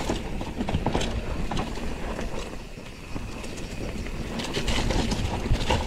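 Mountain bike coasting down a rough trail: the rear hub's freewheel ratchet ticks and the chain and frame rattle over a steady low rumble.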